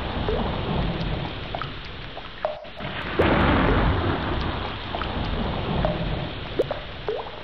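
Heavy rain with low rolling thunder from a thunderstorm, dipping briefly about two and a half seconds in before swelling again.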